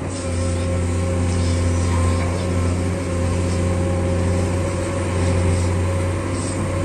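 A heavy diesel engine running at a steady speed: a deep, even hum that holds one pitch throughout.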